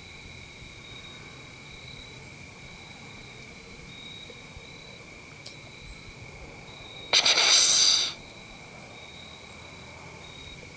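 Whitetail buck's snort-wheeze: a single loud rush of hissing breath forced through the nose, about a second long, about seven seconds in. Steady trilling of crickets and other insects runs underneath.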